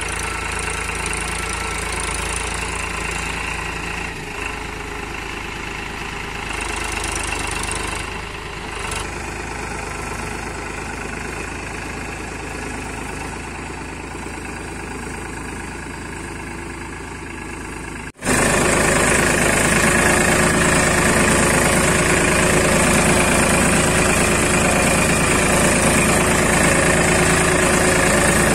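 Escorts tractor's diesel engine running steadily while pulling a disc plough through turf. About two-thirds of the way through, the sound cuts briefly, then the engine is much louder and closer.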